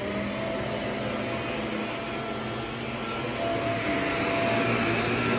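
Electric box fan running: a steady rush of moving air with a faint steady whine, growing a little louder about four seconds in.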